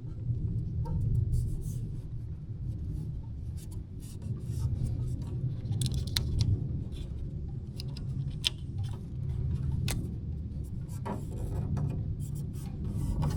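Hands working a decal onto a garden tractor's bodywork: scattered small clicks, crinkles and rubbing over a steady low rumble.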